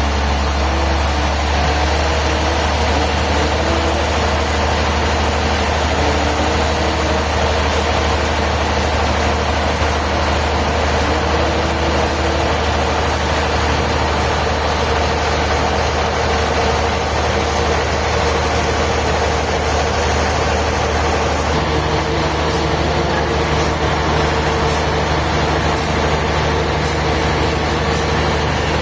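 Sawmill machinery running steadily with a deep engine-like hum; a second low tone joins about two-thirds of the way through.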